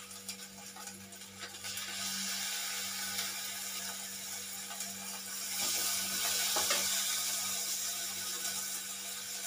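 Cooked lentil water poured into a hot pan of fried onions and spices: a steady hiss that starts a couple of seconds in and grows louder about halfway through, with a couple of light metal clinks from the steel vessels.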